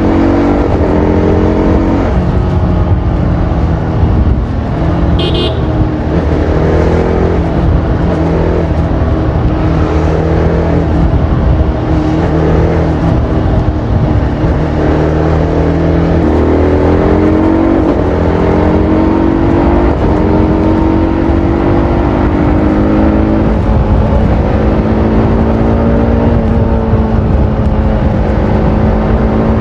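TVS Apache RR310's single-cylinder engine through its stock exhaust, rising and falling in pitch again and again as the bike accelerates and shifts through the gears in traffic, then holding a steadier note near the end. A short high beep sounds about five seconds in.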